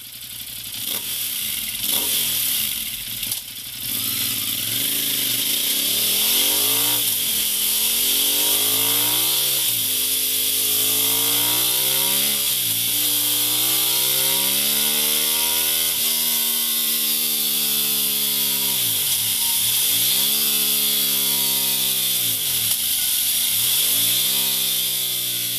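Ducati Monster 821's L-twin engine through a MIVV Speed Edge slip-on exhaust, its revs rising and falling over and over. Several climbs in pitch break off in sudden drops, and near the end the revs dip sharply and come back up four times.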